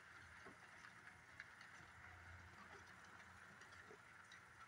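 Faint running of a model passenger train on its track: a low steady hum with a few light clicks from the wheels.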